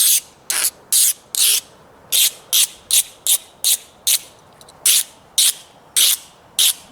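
Steel blade of an Opinel No. 9 penknife being sharpened: about fourteen short rasping strokes at roughly two a second, with a brief pause near the middle.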